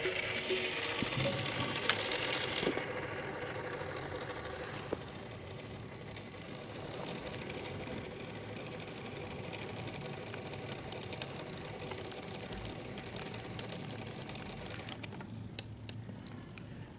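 A small mechanism running with a steady whirr and scattered light clicks, quietening about two seconds before the end.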